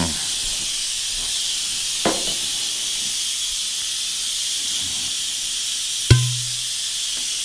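Instant Pot electric pressure cooker venting steam through its pressure-release valve in a steady, loud hiss as the pressure is let out by quick release. A single sharp knock about six seconds in.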